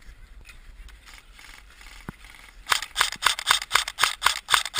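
Airsoft gun firing a quick string of sharp, snapping shots, about six or seven a second, starting a little over halfway through after a single click.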